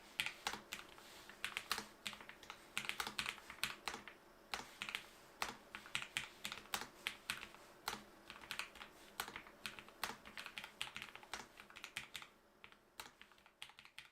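Lofree Flow low-profile mechanical keyboard being typed on continuously: a quick, steady run of light key clicks.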